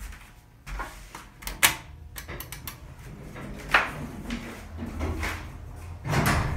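Thyssenkrupp hydraulic elevator doors sliding and closing, with several sharp clicks and knocks and a louder thud near the end.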